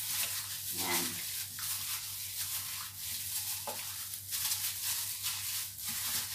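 Plastic-gloved hands mixing and massaging raw chicken pieces in a spicy vinegar marinade in a frying pan: continuous uneven rustling and squishing, with a steady low hum underneath.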